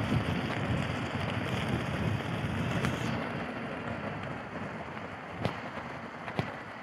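Wind buffeting the microphone as an electric unicycle rolls along a snow-covered path, a steady rumbling rush. Near the end come two sharp clicks about a second apart.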